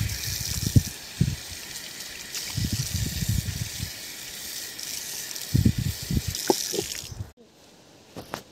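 Water running from an outdoor tap and splashing onto a child's hands and foot as she washes. It cuts off abruptly about seven seconds in.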